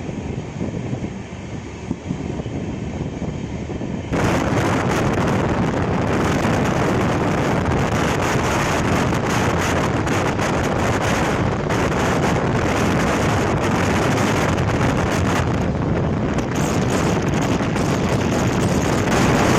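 A moving express train's running noise, with heavy wind buffeting the microphone that starts suddenly about four seconds in.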